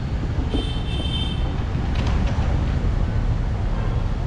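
Steady low rumble of engine and traffic noise, with a brief thin high tone about half a second in.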